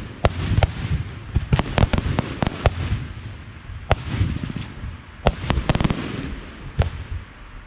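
Aerial fireworks going off in quick irregular volleys, with many sharp bangs and crackles over a low rumble of echo. The bangs thin out and the sound fades near the end.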